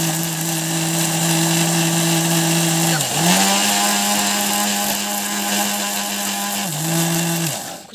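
Usha electric mixer grinder running with its steel jar, blending fruit pieces and milk, lid held down by hand. The motor's steady hum dips and then settles at a higher pitch about three seconds in, drops back near the end, and stops just before the end.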